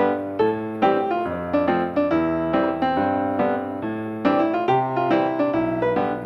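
Background piano music, with notes and chords struck about twice a second.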